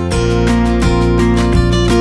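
Background music: a strummed acoustic guitar playing a steady rhythm, louder from the start.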